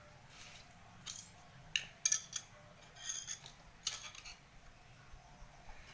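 Scattered light metallic clicks and clinks of small objects and tools being handled, at irregular intervals, with a cluster of sharper ones about two seconds in.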